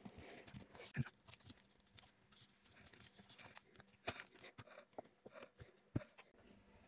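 Light clicks and taps of hands working on an open laptop's internals and handling its plastic case, with two sharper knocks, one about a second in and one near the end as the laptop is lifted and turned over.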